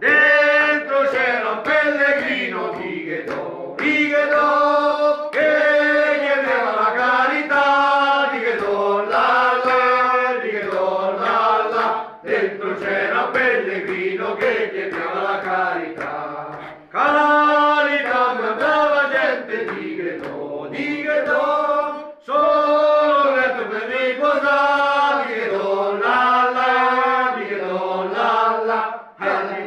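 Group of voices singing a repetitive, chant-like song together, phrase after phrase, with short breaths between phrases every few seconds.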